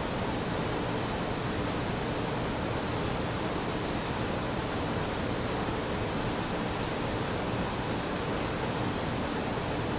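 Steady, even hiss of background room noise with no distinct events.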